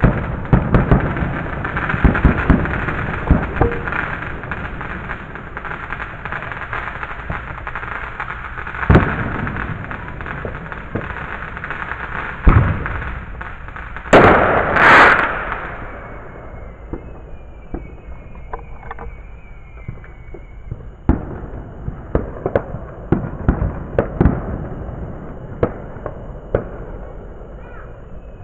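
Fireworks going off: a string of sharp bangs and crackling pops, with a louder rushing burst lasting about two seconds around the middle.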